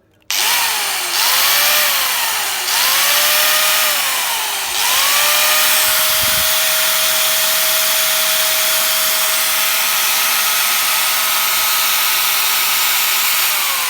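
Stanley 750 W angle grinder motor whining as it runs. It is switched on, its speed falls and picks up again three times in the first few seconds, then it runs at steady speed before starting to wind down near the end.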